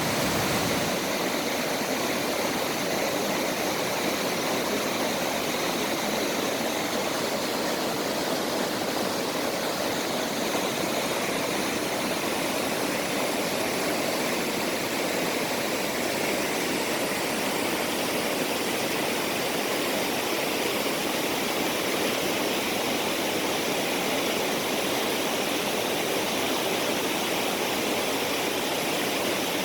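Mountain valley stream: water rushing steadily, with no change.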